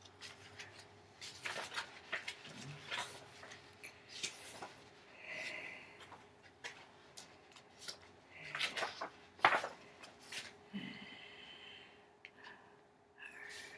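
Small objects handled at close range: scattered rustling, clicks and light knocks, with a few short squeaks about five, eight and eleven seconds in.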